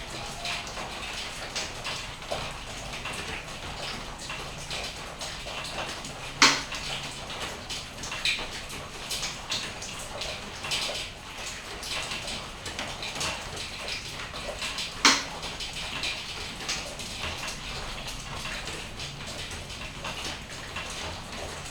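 Steady rain falling, a constant patter thick with small drips, with two louder sharp drip taps, one about six seconds in and another about fifteen seconds in.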